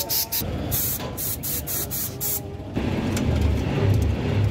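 Compressed-air spray gun hissing in short bursts, about three a second, for the first two and a half seconds. It then gives way suddenly to a steady low rumble.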